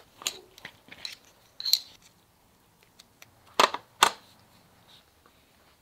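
Clicks and knocks of a riflescope being handled and seated onto an air rifle's mounting rail. Metal and plastic taps come at irregular intervals, with two sharper knocks close together a little past the middle.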